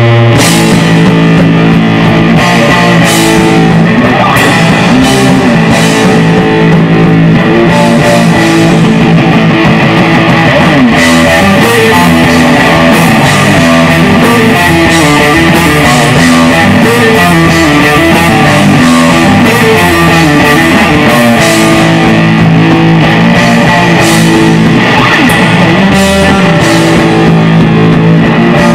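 Live heavy rock band playing loud: electric guitar chords through an amplifier over a drum kit with cymbal hits, the drums coming in right at the start after held guitar notes.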